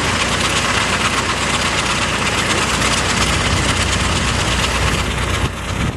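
Vintage tractor engine running steadily close by as it drives along the lane, easing slightly near the end.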